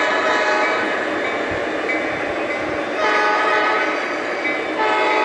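Sampled horn of a Lionel Legacy SD70ACe model diesel locomotive sounding in blasts: one at the start, a longer one from about three seconds in, and another starting near the end, over the steady rolling noise of the model container cars on the track.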